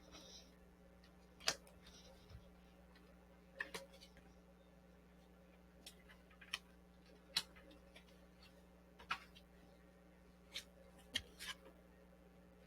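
Tarot cards being handled and laid down on a table: about ten sharp, irregularly spaced taps and clicks over a steady low electrical hum.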